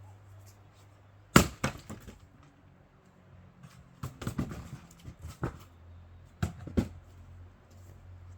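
Fiskars X27 splitting axe striking pine firewood: one hard chop about a second and a half in, followed by wood cracking, then several more knocks of split pieces.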